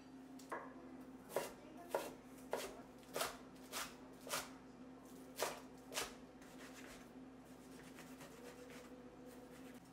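Kitchen knife chopping green onions on a wooden cutting board: a run of sharp, separate strikes about every half second, stopping about six seconds in. A faint steady low hum runs underneath.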